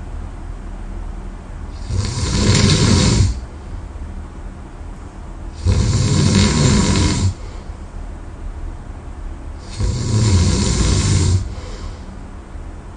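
A person snoring heavily in deep sleep: three loud, rasping snores about four seconds apart, each lasting about a second and a half, with quieter breathing between them.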